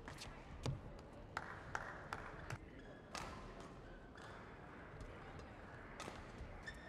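Badminton rally: sharp cracks of rackets striking a shuttlecock, with taps and thuds of players' shoes on the court, most of them in the first three seconds, then a lull and more near the end. A faint murmur of voices in the hall lies underneath.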